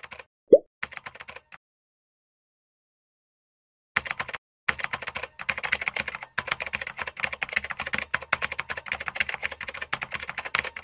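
Typing sound effect: rapid computer-keyboard key clicks, with a short pop under a second in. After a pause of a couple of seconds the fast clicking resumes about four seconds in and runs on without a break.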